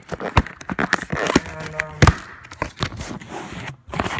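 Close handling noise of rustling and crinkling with irregular sharp clicks and scrapes, as a phone camera and shoe packaging are moved about. A short pitched tone, like a squeak or hum, sits about a second and a half in.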